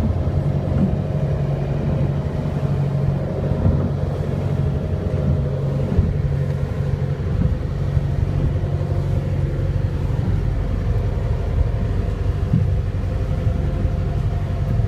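Passenger boat's engine running steadily under way, a constant low hum, with wind buffeting the microphone as a ragged low rumble.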